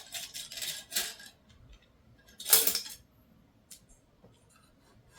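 Metal clicks and clinks of AR-15 rifle parts as the buffer and buffer spring are worked out of the buffer tube past the retaining detent, with one louder metallic clank about two and a half seconds in.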